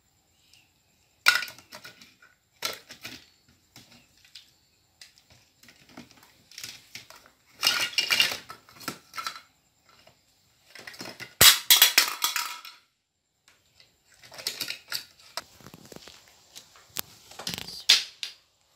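Plastic toys clattering and knocking against a perforated plastic basket as a baby monkey rummages through them, in irregular bursts of rattling with near-silent gaps between.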